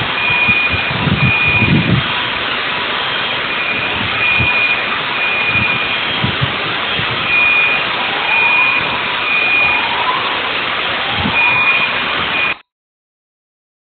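Electronic alarms beeping over and over on a high tone, set off by a large explosion, over a loud, steady rush of noise with a few low rumbles. Rising sweeping tones come in about two-thirds of the way through, and the sound cuts off suddenly near the end.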